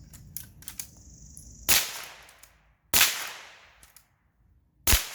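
Three 12-gauge shotgun shots fired in quick succession, the second about a second after the first and the third two seconds later, each echoing away briefly. A few faint clicks come before the first shot.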